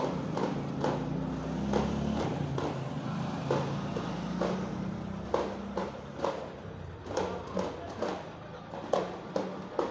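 Indistinct voices of a procession crowd, with scattered sharp taps and knocks that come more often in the second half.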